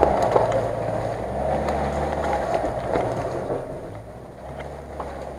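Nissan Navara pickup's engine running under load as it climbs a muddy forest track, fading steadily as it pulls away.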